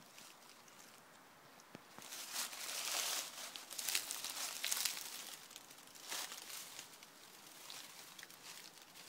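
Irregular rustling and crunching of dry leaves and grit underfoot, loudest from about two to five seconds in, with another short burst about six seconds in.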